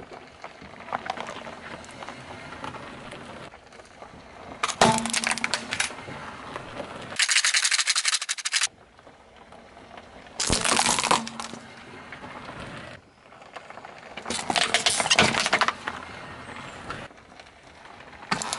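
A car tyre rolls over and crushes small plastic objects on asphalt: four bursts of cracking and crunching plastic, each about a second long, with quieter tyre-on-grit noise between them.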